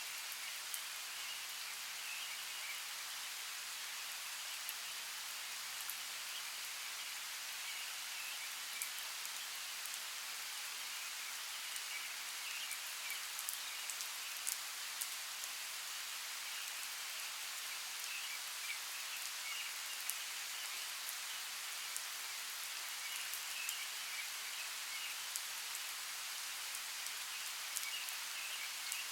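Steady rainforest rain: a constant even hiss with scattered sharp ticks of single drops landing close by.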